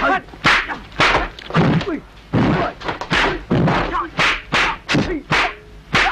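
Rapid series of dubbed punch and block impact sounds from a kung fu film fight, sharp whacks and thuds coming about twice a second, mixed with short shouted grunts from the fighters.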